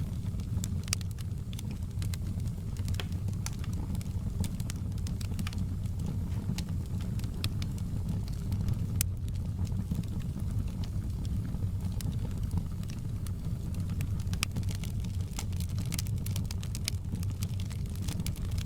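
Wood fire burning in a fireplace: a steady low rumble of flames with irregular crackles and pops, one sharper pop about halfway through.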